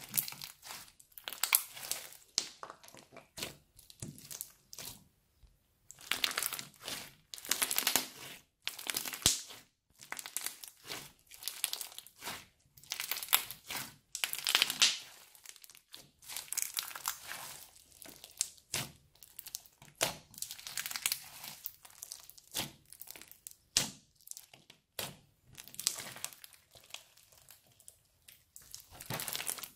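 Crunchy green slime packed with small beads being kneaded, squeezed and pressed by hand: dense, irregular crackling and clicking in stretches of a few seconds, with short pauses between squeezes.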